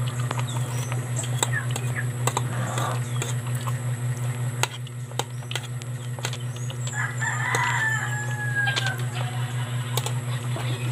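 A rooster crowing once, about seven seconds in, ending in a long, slightly falling note. Underneath are a steady low hum and scattered small clicks.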